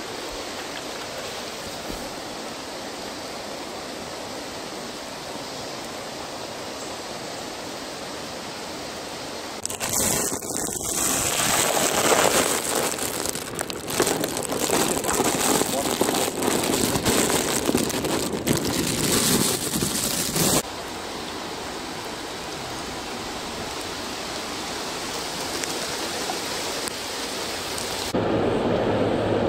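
Steady hiss of rain falling on floodwater, with a louder, rougher stretch of noise through the middle. Near the end it gives way to a lower, fuller rush of fast-flowing floodwater.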